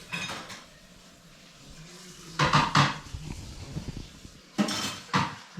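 Hard metal objects clinking and clanking together in several short sharp knocks: one at the start, a cluster about halfway through, and two more near the end.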